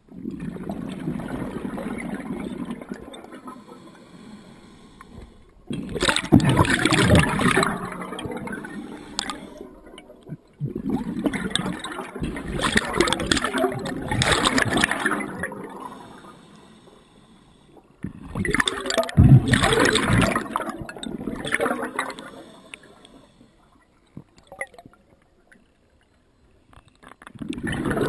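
A scuba diver breathing underwater through a regulator: three long gurgling bursts of exhaled bubbles, with quieter hissing inhales between them.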